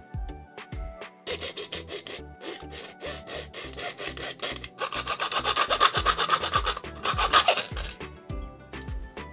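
Hacksaw blade, held in the hand, sawing lengthwise through a PVC pipe in quick back-and-forth strokes. The sawing starts about a second in, is loudest in the middle and stops near the end. Background music with a steady beat plays underneath.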